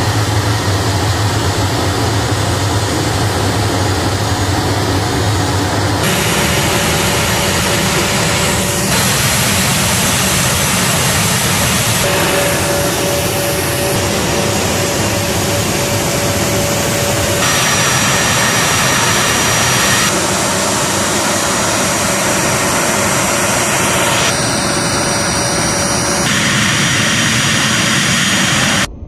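Loud, steady jet engine noise across an airfield ramp, its character changing abruptly several times.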